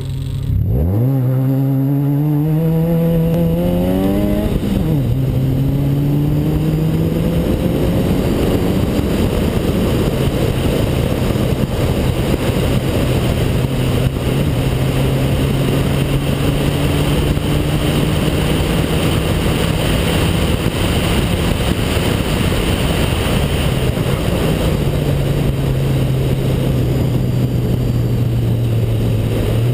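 Car engine accelerating hard from a standing start, its pitch climbing for about four seconds before dropping at an upshift, then running at a high, steady speed with small rises and falls as the driver lifts and gets back on the throttle. A rush of wind over the hood-mounted microphone runs beneath it.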